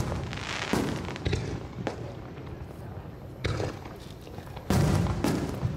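Aerial fireworks bursting: about half a dozen sharp bangs a second or so apart, with a pause in the middle, the loudest a little before the end.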